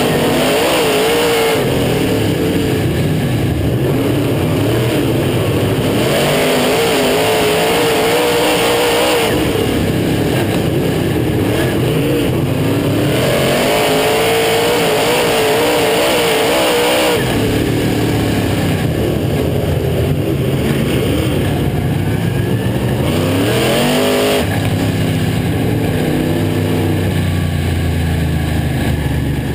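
Dirt modified race car's V8 engine at racing speed, heard from inside the cockpit. Its pitch rises and falls in a repeating cycle of several seconds, on and off the throttle around the oval.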